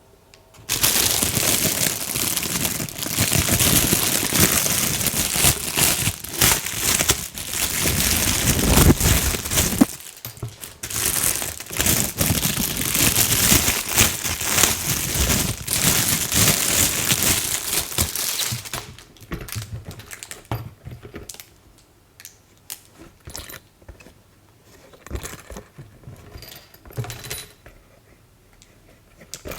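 Plastic packaging crinkling and rustling as it is handled and torn open for about the first 19 seconds, then scattered light clicks and taps of small plastic parts being handled.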